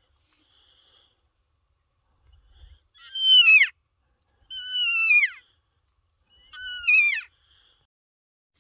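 Elk call blown by a hunter: three short, high-pitched notes about a second and a half apart, each sliding down in pitch.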